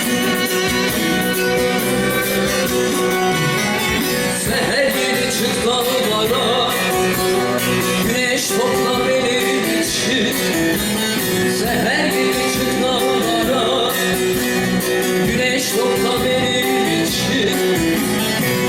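Turkish folk song (türkü) performed live: plucked-string accompaniment, with a woman's singing voice coming in about four seconds in.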